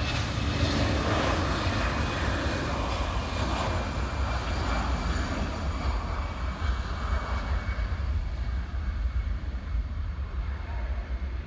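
Twin-engine jet airliner at takeoff power on its roll down the runway: a steady jet roar with a faint high whine, slowly fading as it moves away.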